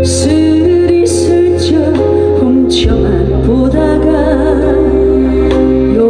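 A woman singing a Korean trot song live into a handheld microphone, over instrumental accompaniment with a steady bass line.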